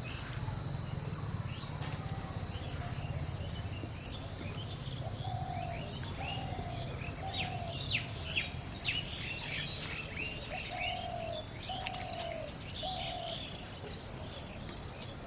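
Birds calling: a run of short, even, lower notes repeated about twice a second, heard twice over, with a busier spell of high chirping in the middle. A low rumble sits under the first few seconds.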